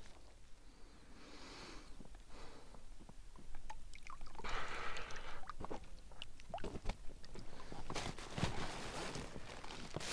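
Water sloshing and pouring off a landing net as a large carp is lifted out of the water, in irregular swells, with scattered knocks and rustles of the net and gear against an inflatable boat.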